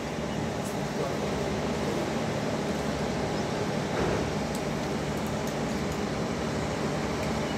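Steady mechanical hum and hiss from the workshop, with a few faint metallic clicks from a box spanner tightening the end-cover bolts of an electric motor.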